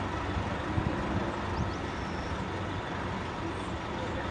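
Boeing 747-400 freighter's four jet engines running at a distance, a steady rumble with no change in pitch.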